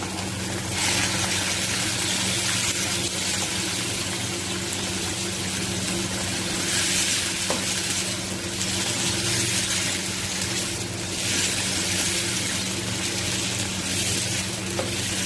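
Hot oil sizzling in a frying pan with chopped garlic frying, the sizzle swelling louder about a second in and again twice later, over a steady low hum.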